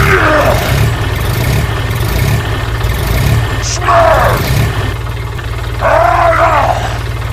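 A steady, loud low engine-like rumble that cuts in suddenly and runs on evenly. Several drawn-out calls that rise and fall in pitch sound over it, one at the start and others about four and six seconds in.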